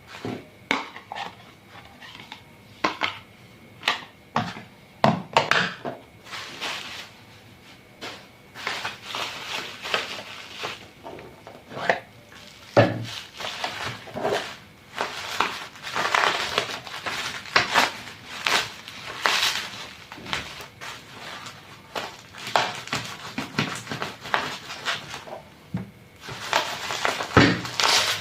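Irregular clinks and knocks of household items, such as dishes and utensils, being handled. Scraping and rustling run between the knocks, and they grow busier after the first several seconds.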